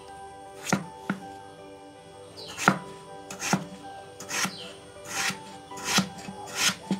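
Knife cutting vegetables on a board, about nine separate strokes at an uneven pace of roughly one a second, over soft background music.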